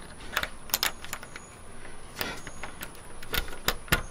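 A rusty key rattling and clicking in a brass Schlage deadbolt as it is jiggled and worked in the lock: irregular sharp metallic clicks, the strongest near the end.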